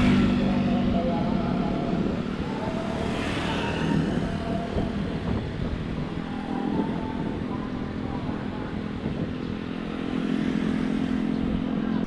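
Motorcycle engine running steadily at an even speed, with road and wind noise.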